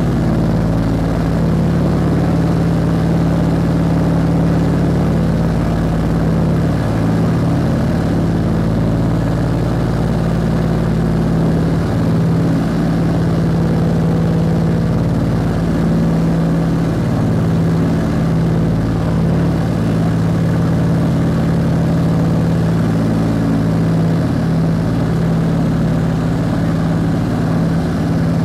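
Cabin noise of a Scottish Aviation Twin Pioneer in cruise: its twin propeller piston engines make a loud, steady drone.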